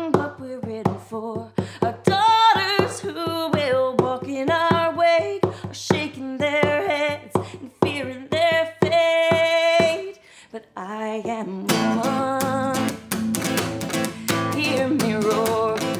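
A woman sings to her own strummed acoustic guitar in a steady rhythm. A little past the middle there is a brief pause, then the guitar comes back strummed harder and fuller under the voice.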